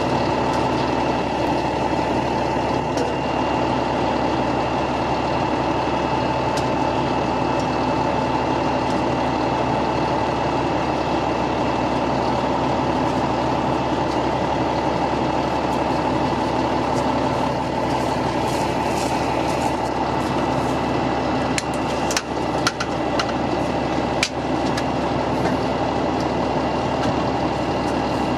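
Fire engine's motor running steadily, with a steady whine on top. A few sharp clicks a little past two-thirds of the way through.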